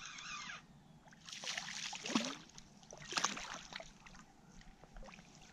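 A small striped bass thrashing and splashing at the water's surface as it is reeled in to the bank, in two bursts about a second and a half apart, with smaller splashes after. A short wavering squeal is heard in the first half second.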